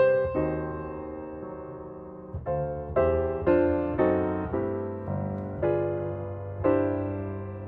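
Background piano music: soft chords and notes struck in a slow rhythm, each ringing out and fading.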